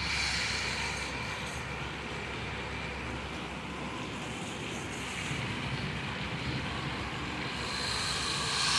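Heavy monsoon rain falling on leafy trees and a wet street: a steady hiss that grows louder near the end.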